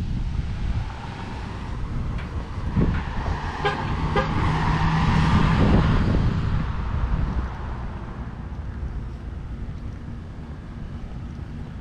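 Street traffic: a vehicle passes by, swelling to its loudest about five to six seconds in and then fading away.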